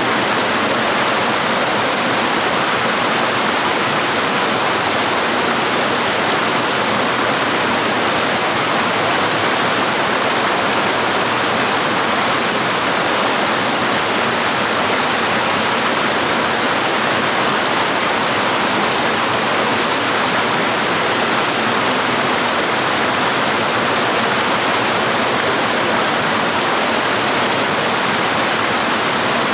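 Waterfall and stream water rushing steadily, an even, unbroken hiss of falling and flowing water.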